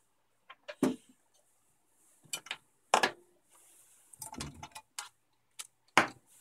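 Wire cutters snipping and stripping thin USB cable wires: sharp clicks, loudest about a second in, at about three seconds and near the end, with smaller clicks between.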